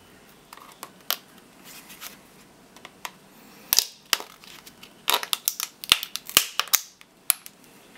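Plastic case of a Toshiba laptop battery pack being pried open with a flat-blade screwdriver, its seam cracking and snapping. There are scattered clicks, a sharp snap a little before the midpoint, and a quick run of cracks about five to seven seconds in.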